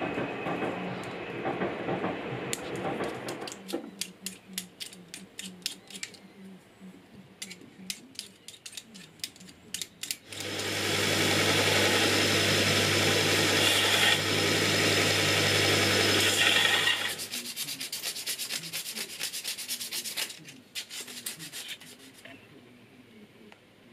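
Belt grinder running with small brass pin stock held against the belt, a steady grinding noise over a low motor hum, starting about ten seconds in and stopping suddenly about seven seconds later. Before it comes hand rubbing of the pin stock and a run of light clicks and taps; after it, more clicks and scraping.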